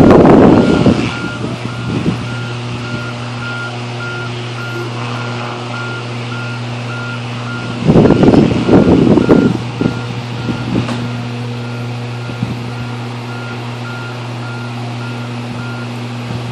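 A truck's reversing beeper beeping steadily, about two beeps a second, stopping shortly before the end, over a steady low hum. Two loud rough rumbling bursts come at the start and about eight seconds in.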